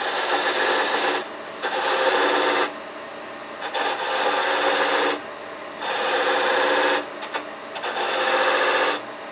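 A turning tool is pressed against a walnut handle spinning on a wood lathe, scraping in five passes of about a second each, with the lathe running between them. It is cutting grooves into the tenon for the epoxy to grip.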